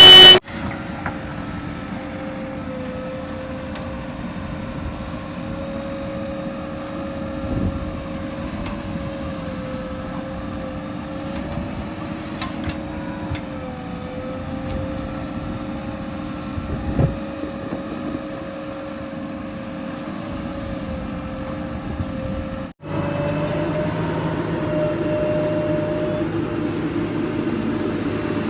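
Heavy diesel vehicle engine running steadily with a slight wavering in pitch, with a couple of brief knocks. About 23 s in it cuts to a louder engine sound.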